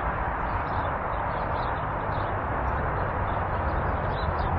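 Steady rushing background noise, with faint scattered high ticks.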